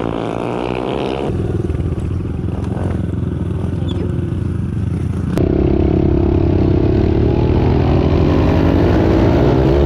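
Pit bike engine running close to the microphone, revving and easing off, then settling to a quieter steady run. About halfway through it switches abruptly to a louder pass whose pitch rises and falls near the end as the bike accelerates and backs off.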